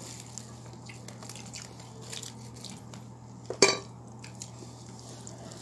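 Quiet eating sounds: small clicks and soft chewing as food is handled by hand at a plate, with one sharp knock about three and a half seconds in, over a steady low hum.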